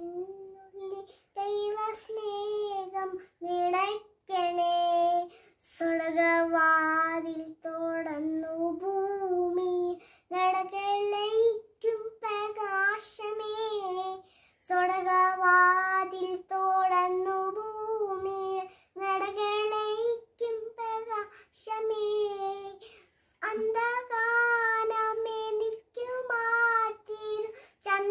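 A young child singing a prayer song solo, unaccompanied, in long held notes with short breaths between phrases.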